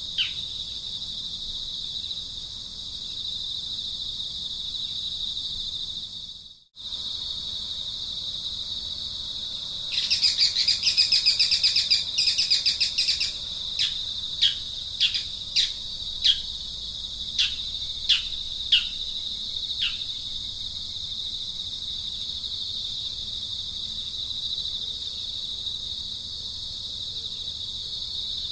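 A steady, high-pitched insect drone runs throughout. About ten seconds in, a loud rapid trill lasts about three seconds, followed by a string of about nine short, falling bird chirps that end about twenty seconds in. The sound drops out for a moment a little before the trill.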